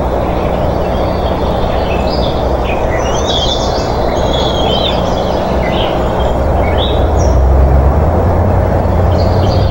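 Birds chirping in short high calls scattered throughout, over a steady rushing noise and low hum that grows louder about three-quarters of the way through.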